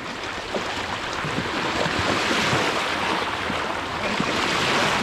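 Saltwater waves washing onto the shore: a steady rushing that swells about halfway through.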